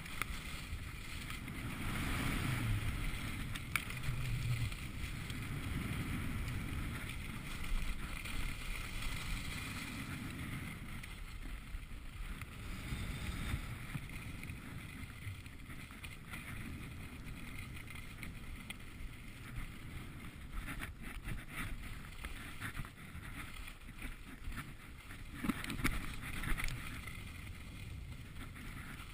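Skis sliding and scraping over groomed snow, with wind rumbling on the camera microphone. The sound is a continuous rushing noise that swells and eases, with short harder scrapes here and there.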